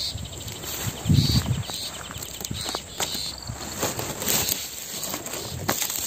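Light rustling and brushing of palm fronds and nest twigs with scattered small clicks, and a dull low bump about a second in, over faint insect chirring.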